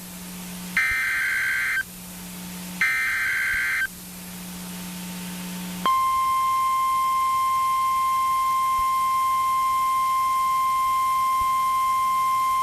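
NOAA Weather Radio Emergency Alert System activation heard through a weather radio. First come two one-second buzzing bursts of the SAME digital header, a second apart, with radio hiss between. About six seconds in, the steady single-pitch 1050 Hz warning alarm tone starts and holds, signalling that a warning broadcast follows.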